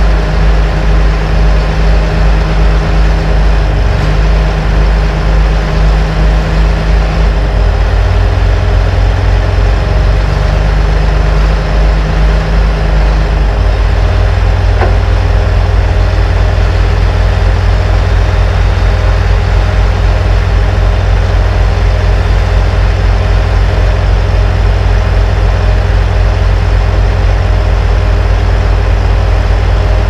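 John Deere 850J crawler dozer's diesel engine running loud and close. Its low note shifts about 8 seconds in and again about 14 seconds in, then holds steady.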